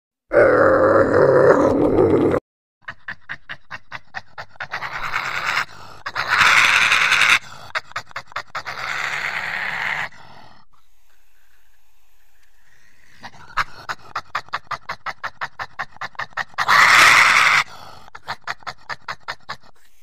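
A Eurasian lynx calling for about two seconds, then a coati vocalising: a rapid run of short pulses, broken by two louder, harsher stretches, one a third of the way in and one near the end.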